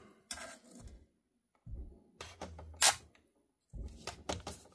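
Scattered handling noises of hands on the laptop and table: soft knocks and rubbing in short bursts, with one sharp click about three seconds in.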